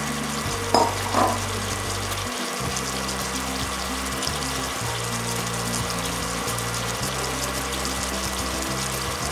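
Cherry tomatoes and garlic cooking in olive oil in a pan, a steady sizzle with fine crackling, under background music with a low bass line. Two short sharp knocks close together about a second in are the loudest sounds.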